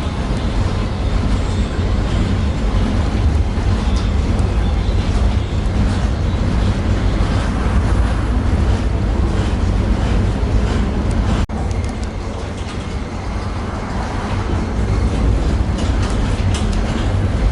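Interior of a Tatra T6B5SU tram in motion: steady rumble of the wheels on the rails and running gear. The sound cuts out for an instant about eleven and a half seconds in, then goes on a little quieter before building again.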